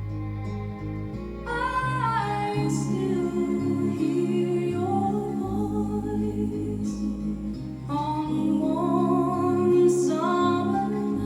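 Recorded music played back through a Meracus Onesta amplifier: a singer's voice comes in twice in slow, gliding phrases over steady bass notes and sustained accompaniment.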